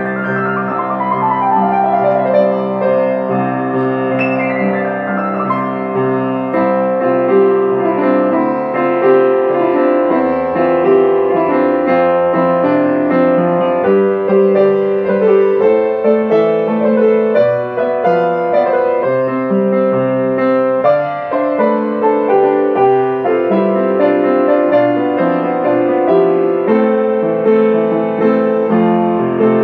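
Upright piano played solo: chords and melody notes ringing on, one after another without a break.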